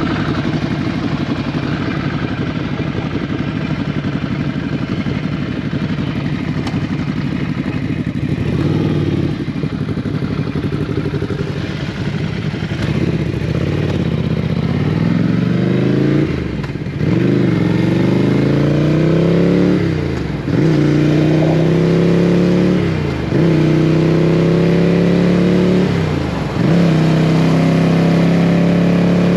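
Motorcycle engine running steadily, then accelerating through the gears: its pitch climbs and drops sharply at each of four upshifts in the second half.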